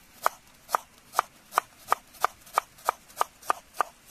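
Kitchen knife chopping a red onion on a wooden cutting board. About eleven sharp, even strokes come at roughly three a second and get slightly quicker toward the end.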